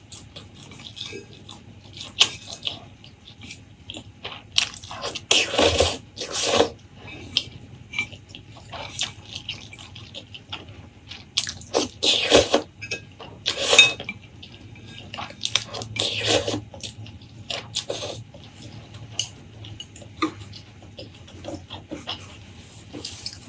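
Close-miked eating sounds: chewing, with many small wet clicks and crunches from the mouth and a few louder, longer noisy bursts.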